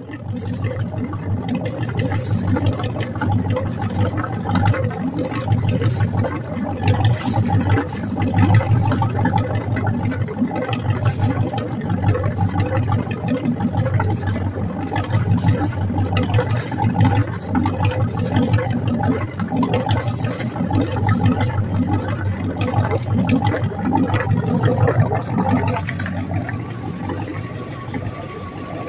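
Rebuilt inboard marine engine running steadily on a test run, exhausting through a wet exhaust: cooling water gushes and splashes out of the two transom exhaust ports along with the exhaust.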